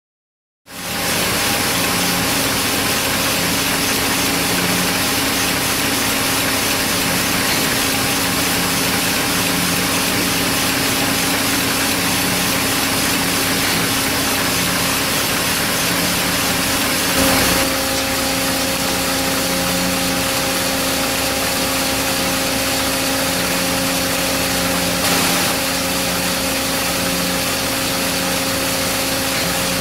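Packaging-line machinery running past a hot melt glue valve: a steady mechanical hum and hiss with a low tone that pulses on and off irregularly. It starts abruptly about a second in, with two brief bumps later on.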